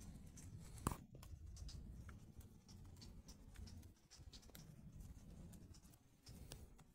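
Near silence: a faint low rumble with scattered soft ticks and one sharper click about a second in.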